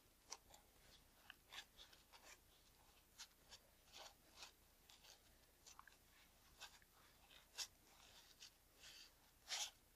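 Faint rustling and crinkling of a glass cleaning wipe rubbed between nitrile-gloved fingers over a camera lens element to clear its haze: a string of soft, irregular scratchy ticks, the loudest two near the end.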